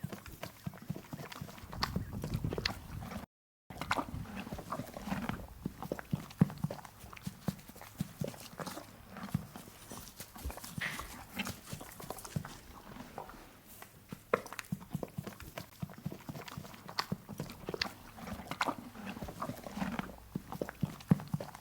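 Horse sounds: many sharp, irregular hoof knocks as the horse moves about. The sound drops out completely for a moment about three seconds in.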